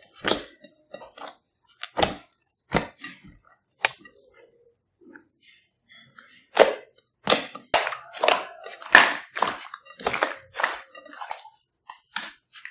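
Hands squeezing, poking and stretching thick slime in a glass bowl, making a string of sharp wet pops and clicks. The pops are spaced out at first, then come thick and fast about halfway through.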